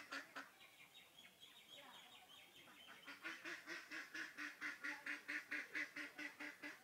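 An animal calling in rapid runs of short, evenly spaced calls: a brief run at the start, then a long run of about five calls a second from about three seconds in.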